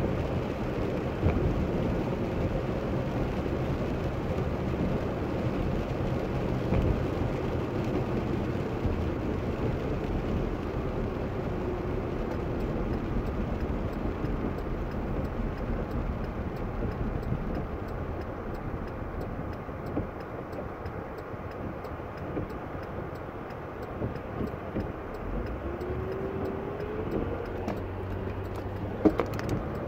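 Road noise heard from inside a car on a wet road: tyre hiss and the engine running. A faint whine sinks slowly in pitch over the first dozen seconds, then rises again a few seconds before the end, and there is a single knock near the end.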